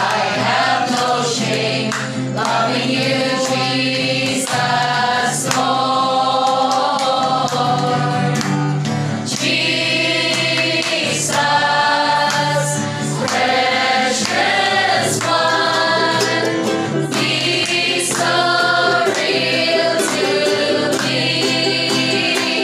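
A group of women singing a Christian worship song together, with an acoustic guitar accompanying them.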